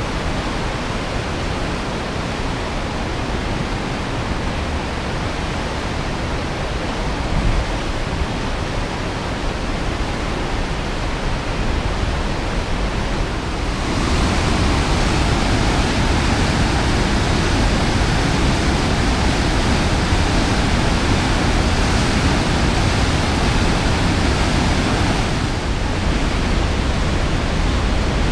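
Whitewater from a dam spillway and river rapids in high flow: a loud, steady rushing, which gets louder and fuller about halfway through as the water pouring from the spillway gates comes close.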